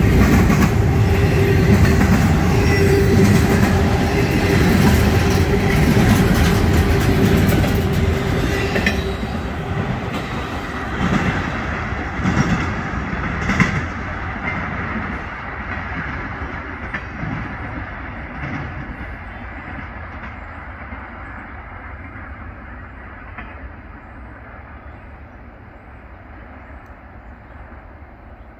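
Double-stack container train's well cars rolling past, wheels clattering on the rails with a steady tone in the noise, then the sound fading away as the end of the train recedes. A few sharper knocks come about twelve to fourteen seconds in.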